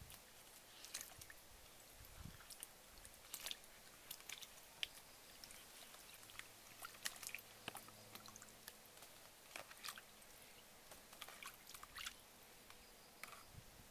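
Faint small splashes and soft clicks as hands rub and wash peeled potato pieces in a plastic bowl of water, scattered and irregular.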